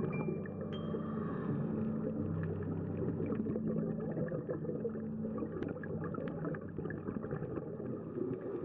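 Underwater sound picked up through a GoPro's housing during a boat dive: a low steady drone of a boat engine carried through the water, with dense fine crackling over it.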